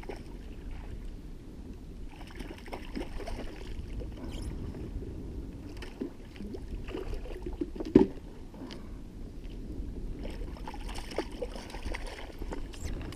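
Water sloshing against a plastic kayak hull, with scattered knocks and clatter of gear in the boat and one sharp knock about eight seconds in. A hooked jack splashes at the side as it is grabbed near the end.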